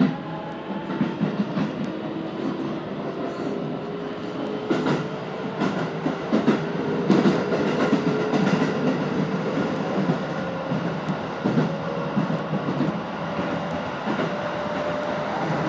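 Keisei Main Line electric train heard from the front of the car: the wheels clack over rail joints and points while the traction motors' faint whine rises slowly in pitch as the train picks up speed.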